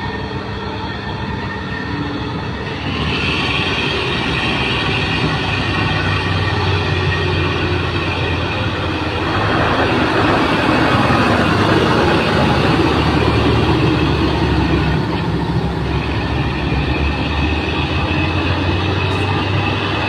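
Diesel engines of old timber lorries working hard on a steep logging track, a steady heavy drone with a high whine above it. It grows louder about three seconds in and again about halfway through.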